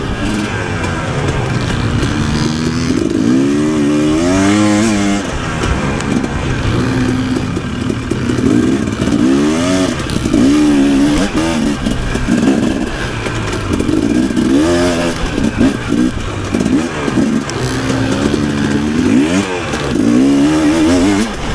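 Off-road dirt bike engine revving up and down over and over as the throttle is worked, its pitch rising and falling every few seconds.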